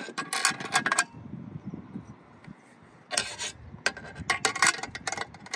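Metal wrench working a nut on a metal light bracket, clicking and clinking in three short bursts of rapid ticks: at the start, about three seconds in and about four and a half seconds in.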